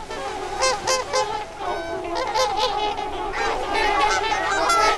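A large flock of trumpeter swans calling, many overlapping honks at once.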